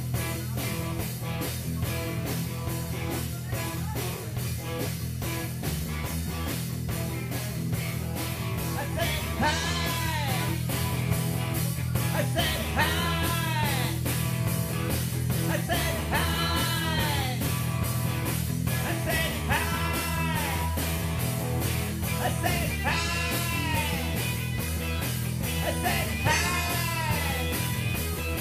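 Live rock band playing an up-tempo song: distorted electric guitars, bass and a drum kit keeping a steady beat. From about nine seconds in, high notes rise and fall over the band again and again.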